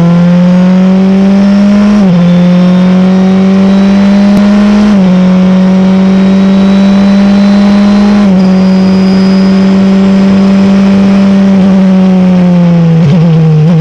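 Wolf GB08 prototype race car's engine heard onboard, pulling hard with its note climbing slowly through the gears. It steps down sharply on three quick upshifts about two, five and eight seconds in. Near the end the note falls and wavers as the car brakes and downshifts.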